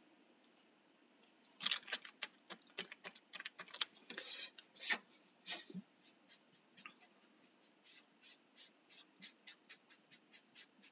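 Makeup sponge dabbing paint onto a laser-cut wooden arch: a string of short, soft taps, quick and uneven at first, settling to about two or three a second in the second half.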